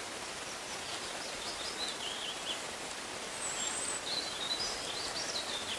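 Small birds chirping in short, scattered calls over a steady rustling outdoor hiss.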